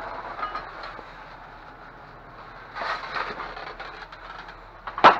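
Hard items being shifted in a dumpster: a brief rustle and scrape about three seconds in and a few sharp clinks near the end, over a steady low hum.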